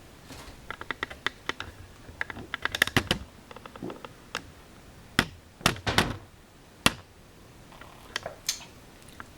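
Irregular light clicks and clinks of a mug and spoon being handled, a few with a short ring, scattered through several seconds.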